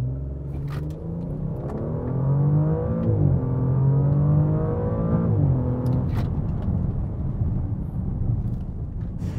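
2020 Audi S6's twin-turbo petrol V6 (helped by a 48V electric compressor) at full throttle on a standing-start 0–100 km/h run, heard from inside the cabin. The engine revs rise in pitch and drop back at upshifts about three and five and a half seconds in, then run steadier near the end.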